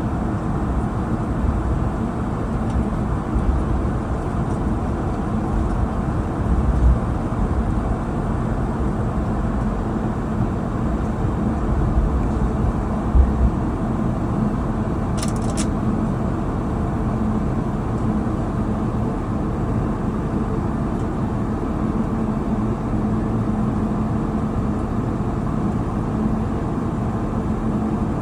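Steady low rumble inside the cabin of an Airbus A220-300 while it taxis, with a faint steady hum. Two low bumps come about 7 and 13 seconds in, and a brief high clink comes about 15 seconds in.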